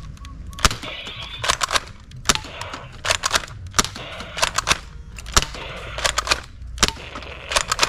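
Toy foam-dart blaster firing repeatedly: a string of sharp snaps, two or three a second.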